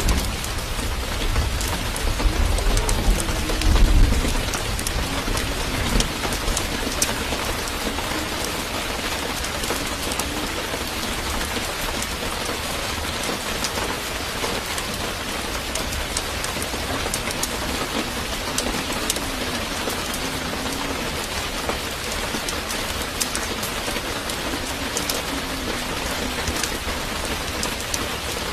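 Steady rain with a patter of scattered drops, and a low rumble about two to four seconds in.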